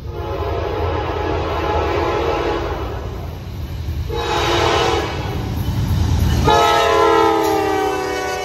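Norfolk Southern diesel locomotive's air horn sounding three blasts, a long one, a shorter one, then a long one that drops in pitch as the locomotive passes, over the low rumble of its diesel engines. It is sounded as the train approaches a grade crossing.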